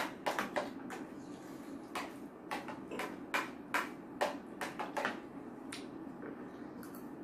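Cutlery clinking and scraping against plates as noodles are eaten quickly: a scattering of short, sharp clicks that thins out about five seconds in.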